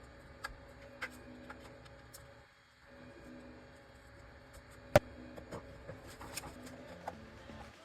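Faint scattered clicks and taps over a quiet steady hum, with one sharp click about five seconds in.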